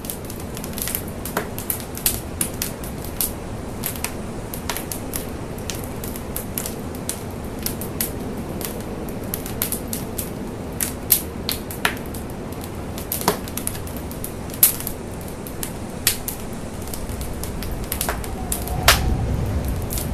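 Large structure fire burning: irregular sharp crackles and pops over a steady low rush of flame, the rush growing louder near the end.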